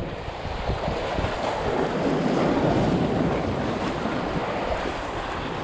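Sea waves washing, with wind on the microphone: a steady rushing that swells a little in the middle and eases off again.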